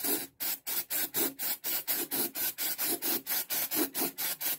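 Aerosol cooling (freeze) spray hissing in rapid short bursts, about four a second, stopping suddenly near the end. The spray is chilling freshly applied instant glue on a plastic hinge so that it sets.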